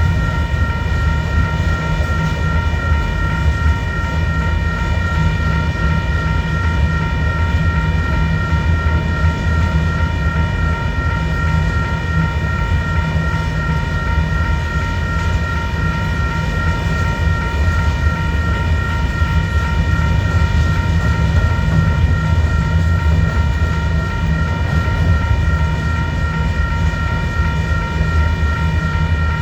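Freight train's cars rolling past with a steady heavy rumble, and a high ringing tone held unchanged throughout.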